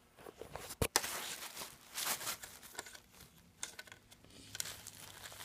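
Rustling and handling noise, with one sharp click just under a second in.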